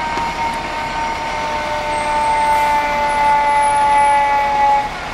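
Fire engine's air horn sounding one long blast, a chord of two steady tones that sags slightly in pitch and grows louder, then cuts off sharply near the end.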